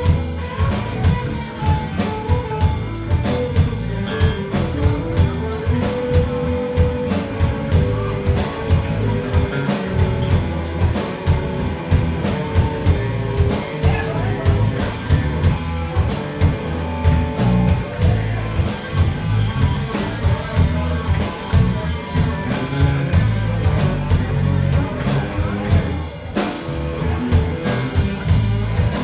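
Rock band playing an instrumental passage: a guitar plays a stepping melodic line over bass and a drum kit keeping a steady beat on the cymbals.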